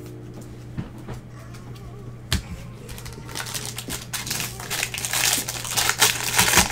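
Foil wrapper of a baseball card pack crinkling and crackling as it is handled and opened. It starts with a sharp click about two seconds in, then builds to a dense crackle over the last few seconds.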